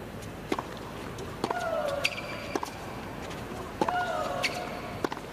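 Tennis rally: a serve and then sharp racket strikes on the ball, about one a second. Three of the strokes come with a loud player's shriek that holds and then falls in pitch.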